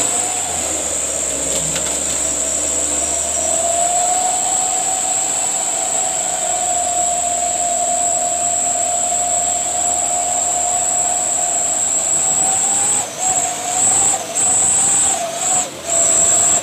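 Stuck cassava truck's engine held at high revs with a loud, steady high-pitched whine as it strains to drive out of deep mud. The whine rises slightly a few seconds in, then cuts in and out several times near the end.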